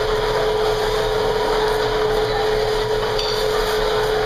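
Steady hiss from a teppanyaki flat-top griddle with vegetables cooking on it, over a constant hum, with a few faint ticks of utensils.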